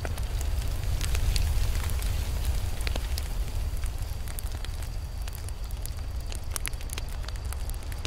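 Campfire burning: a steady low rumble with irregular sharp crackles and pops throughout, a little louder about a second in.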